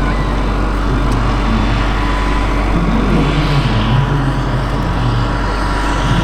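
Radio-controlled scale model Bell 230 helicopter in flight: a steady high whine over rotor and engine noise, with a hiss that swells about halfway through. A constant deep rumble sits underneath.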